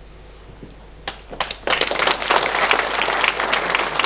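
Audience applauding at the end of a speech: a few scattered claps about a second in, quickly swelling into dense, steady applause.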